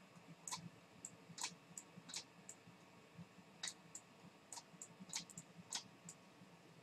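Faint, irregular clicks of a stylus tip tapping on a tablet or pen-display surface as letters are hand-written, about a dozen taps at uneven spacing.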